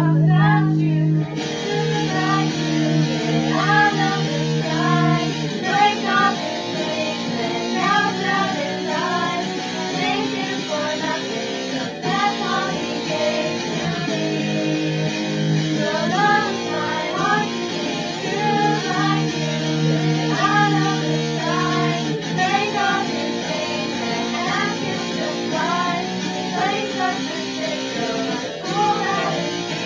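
Guitars playing an instrumental passage of a song, with chords held underneath a run of short plucked melody notes.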